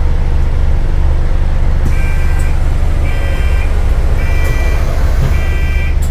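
Low, steady drone inside an Alexander Dennis Enviro400H MMC hybrid double-decker bus. A pitched electronic beep repeats four times, about once a second, starting about two seconds in.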